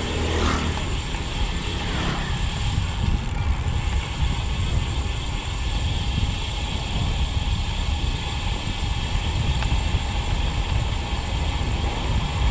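Freehub of an Elite ENT 50mm disc rear wheel buzzing steadily as the road bike coasts downhill at around 35 km/h, under wind noise on the action-camera microphone and tyre rumble on patched asphalt. A motorbike passes in the first two seconds, its engine note falling.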